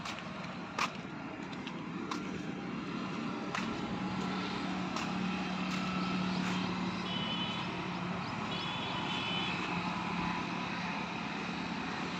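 A steady low engine hum over outdoor background noise, strongest in the middle, with a few faint clicks and two brief high chirps in the second half.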